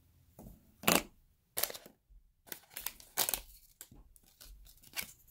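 Rustling, crinkling and light knocks as trading cards and their packaging are handled and set down, in a run of short sharp bursts, loudest about a second in.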